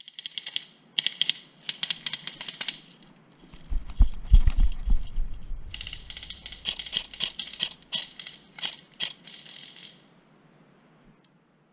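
Airsoft BB rifle firing in rapid rattling bursts: several short bursts in the first few seconds, then a longer run of shots later. A few heavy low thumps come in between.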